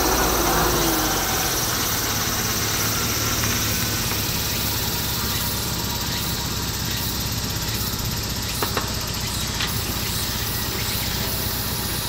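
Classic Rover Mini's A-series four-cylinder engine running at low revs as the car rolls slowly, a steady low hum with two light clicks about two-thirds of the way in.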